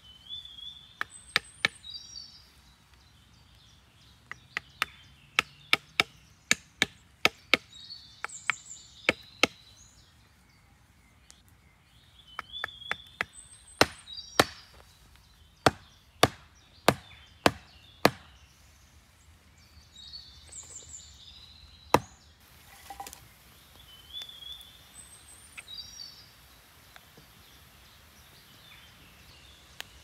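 Sharp knocks of wood striking wood, in runs of quick blows, as a wooden upright post is hammered with a wooden stick. A single last knock comes later. Short bird chirps sound between the blows.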